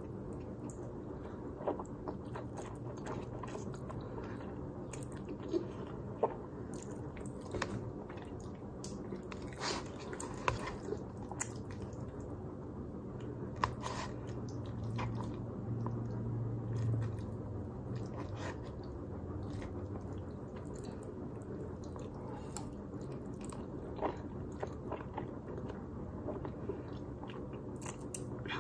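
Close-up eating sounds: chewing and slurping spaghetti carbonara, with scattered short clicks from a fork in a paper cup, over a steady low background hum.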